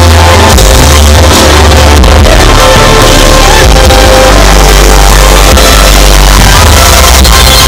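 Very loud rock-style electronic show music over a sound system, with heavy bass.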